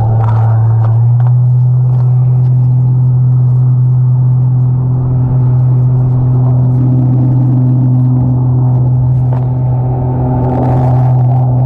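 Electric motor of an underwater scooter running at speed, heard underwater as a loud, steady hum that steps up slightly in pitch about a second in.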